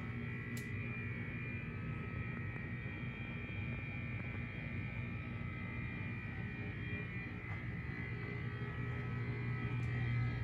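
Steady low hum with faint high steady tones above it, unchanging throughout, and a faint brief click about half a second in.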